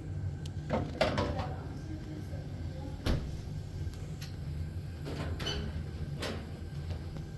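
Several knocks and clatters, the loudest about a second in and about three seconds in, over a steady low hum.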